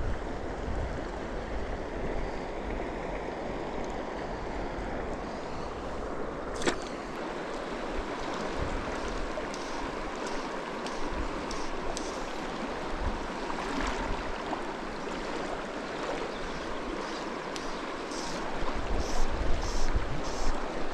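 Shallow mountain river rushing steadily over a rocky riffle. A single sharp click comes about six and a half seconds in, and wind buffets the microphone near the end.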